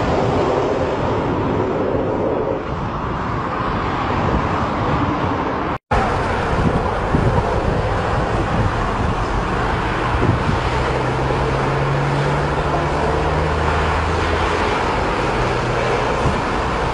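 Fighter jet engine noise as the jet flies past, a dense steady rush throughout. It breaks off briefly about six seconds in and picks up again, with a low steady drone in the later part.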